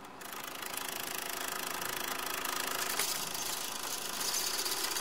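A small machine running with a steady, fast rattle, fading in just after the start and holding even.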